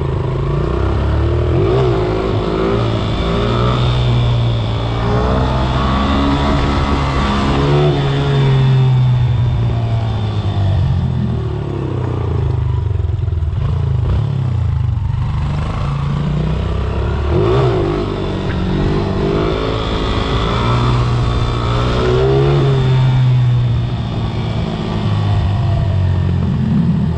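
Four-stroke dirt bike engine running under way, its revs rising and falling repeatedly as the throttle is worked.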